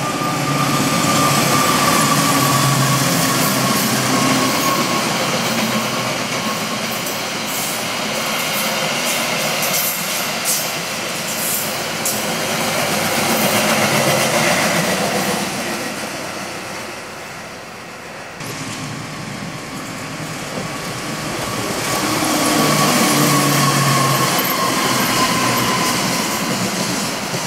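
Passing trains hauled by diesel locomotives: first the engine drone of a locomotive, then the rumble and clatter of passenger coaches going by. After a sharp break about 18 seconds in, a container freight train passes, with its locomotive's drone rising again toward the end.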